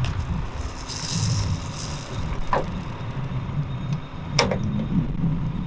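A tractor engine running steadily, with a brief rushing hiss about a second in and two sharp knocks, the louder one about four and a half seconds in.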